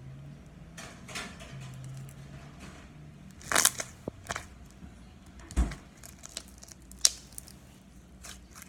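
Homemade slime being mixed and kneaded by hand: irregular crackling, squelching clicks and pops as the slime is stretched and folded, with a louder cluster about three and a half seconds in.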